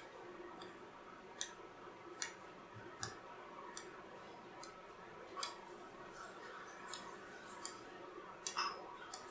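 Faint, light clicks and taps of a pencil on a worksheet as a child writes letters, about one a second.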